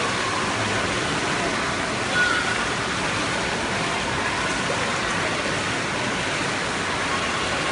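Steady wash of swimming-pool noise: children splashing and kicking in the water, with faint voices in the background and a brief louder sound about two seconds in.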